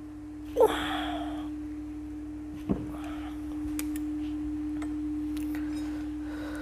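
A steady, even hum, with a few short metallic clicks and clinks of parts and tools being handled during motorcycle engine assembly. The loudest click comes about half a second in and a sharper one near the three-second mark.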